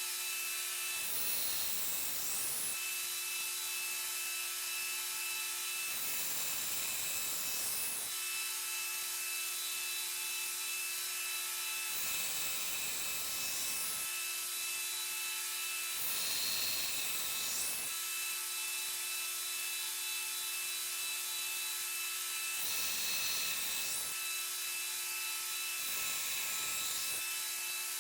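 Belt grinder running with a worn 60-grit belt, a Damascus steel blade pressed to it in about six short passes to break its edges at roughly 45 degrees. Each pass lays a grinding hiss over the motor's steady hum.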